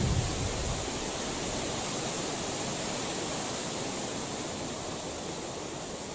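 Steady, even rushing outdoor noise in a forest, with a low rumble of wind on the microphone that dies away within the first half-second.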